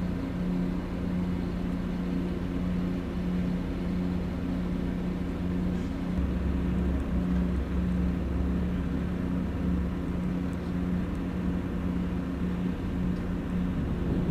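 A large engine running steadily with a low droning hum, a deeper rumble swelling in the middle and easing off again.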